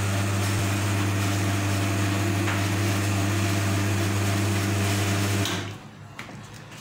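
Commercial espresso machine's pump running with a steady low buzz over rushing water, then cutting off suddenly about five and a half seconds in.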